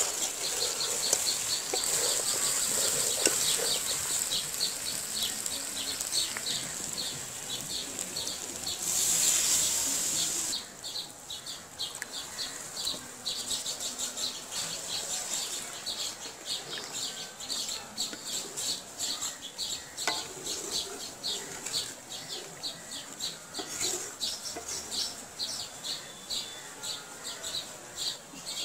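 Masala-coated mutton sizzling in oil in a metal karahi while a wooden spatula stirs it. About ten seconds in, water is poured in with a brief loud gush and the sizzling stops abruptly, leaving the curry quietly simmering. Rapid high chirps repeat in the background throughout.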